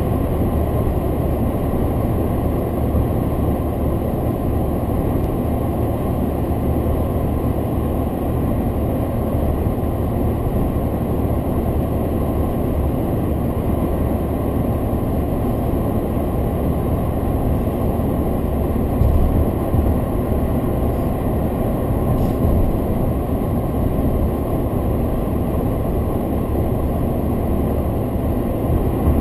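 Steady road and engine noise heard inside a car's cabin while it drives at highway speed, mostly a low rumble, with a few brief louder bumps about two-thirds of the way in.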